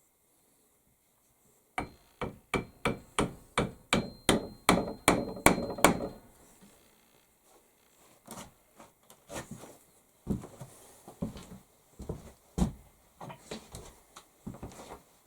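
Hammer blows: a quick run of about a dozen sharp strikes, about three a second, with a faint metallic ring, starting about two seconds in. After them come softer, scattered knocks and taps.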